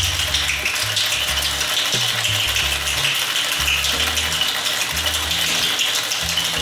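Cocktail shaker being shaken hard, ice rattling inside it in a dense, continuous rattle. Background music with a low bass line plays under it.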